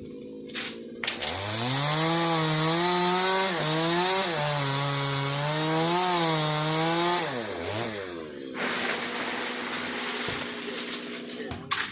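Chainsaw engine idling, then revved up about a second in and held at high revs for about six seconds, its pitch sagging and recovering under load as it cuts the tree. It drops back to idle and cuts off suddenly near the end.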